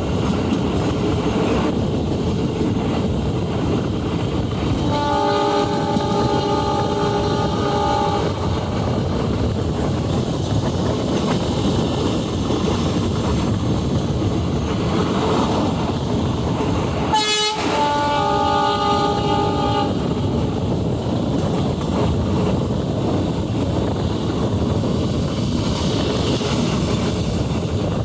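Train running along the track with a steady rumble. The locomotive horn sounds twice: a held blast of about three seconds around five seconds in, and a shorter one of about two seconds past the middle, with a sharp click just before it.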